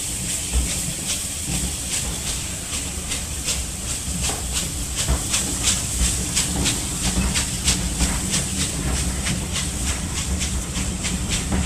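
Steam-hauled passenger train pulling out, its coaches rolling past with a regular clicking about three times a second over a low rumble and a hiss of steam from the Bulleid West Country class locomotive at its head.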